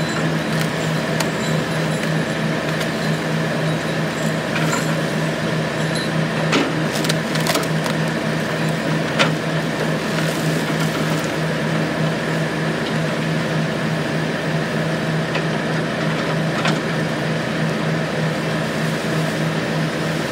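Engine running steadily, a constant even hum, with a few faint clicks about a third of the way in.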